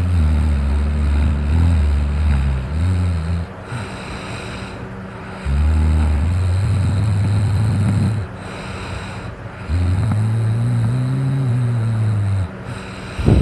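A person snoring heavily while sleeping off drink: three long, low, rattling snores, each about three seconds, spaced by short quieter breaths.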